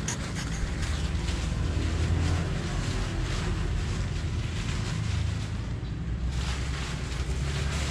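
Wind rumbling on the microphone, with the rustle of a polyester tent fly being handled and pulled over a dome tent.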